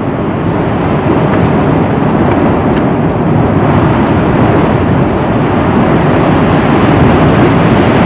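Lava fountaining from a volcanic spatter cone: a loud, steady, low rushing noise of gas and molten lava spattering out of the vent.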